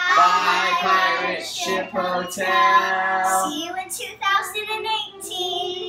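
Several children and adults singing together in unison, holding long drawn-out notes for about the first three and a half seconds, then breaking into shorter, scattered voice sounds.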